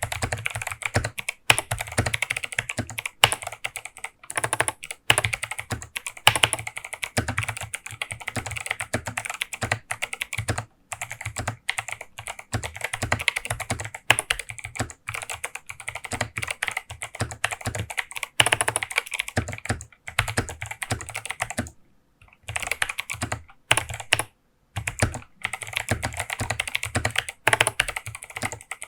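Fast, continuous typing on an 8BitDo Retro Mechanical Keyboard C64 Edition with clicky Kailh Box White V2 switches, a rapid patter of keystrokes. There are a couple of brief pauses about three-quarters of the way through.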